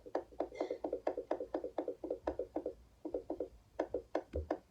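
Quick sticky squelching clicks, about five or six a second, with two short breaks: glue being squeezed and worked by hand while making slime.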